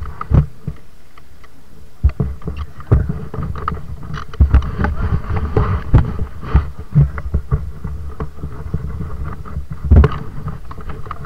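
Irregular low thumps and knocks, a few a second and uneven, with some sharper clicks among them; the hardest thumps come near the start, around the middle and about ten seconds in.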